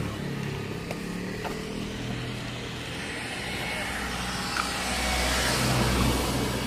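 A motor vehicle's engine running with a low hum, swelling louder about five seconds in and easing off near the end, with a few light clicks.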